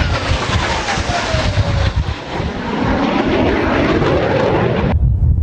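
Jet fighter flying past: loud jet engine noise with a whine that falls in pitch over the first two seconds, then swells again. The sound cuts off suddenly near the end, leaving a low rumble.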